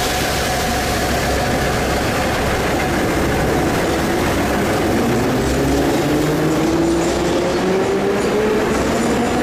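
Ezh-3 metro train, built in 1974, pulling out of the station and accelerating. A whine rises steadily in pitch from about halfway through, over the rumble of the wheels on the rails.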